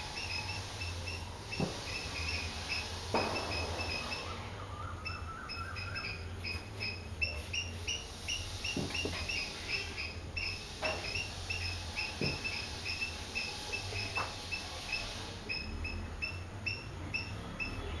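A steady, regular run of short high chirps, about three a second, from a small animal. A few faint knocks and a short rising whistle come in along the way, over a low steady hum.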